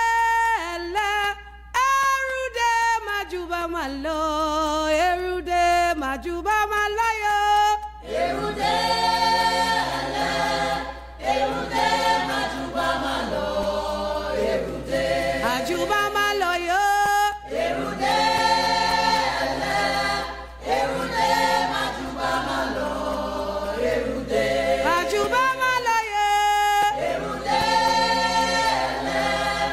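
A cappella singing: a single voice sings alone at first, then a choir comes in about eight seconds in and carries on in full harmony.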